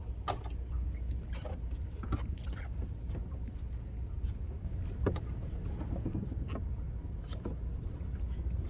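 Fishing boat's engine running with a steady low rumble, with scattered knocks and clicks from handling on deck.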